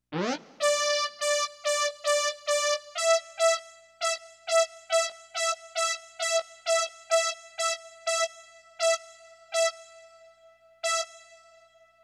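Roland SC-55 sound module, played from an Arduino MIDI controller, sounding one repeated synth note about twice a second after a quick rising sweep at the start. The pitch steps up slightly about three seconds in. Each note rings on longer between strikes as the module's reverb time setting is turned up.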